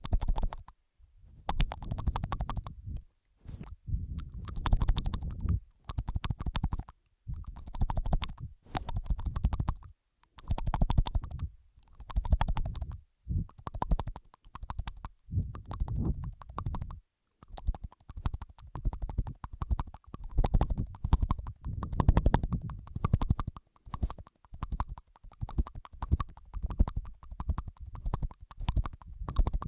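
Layered ASMR mouth sounds: wet clicks, smacks and tongue noises close to the microphone, coming in bursts of a second or two with short pauses between.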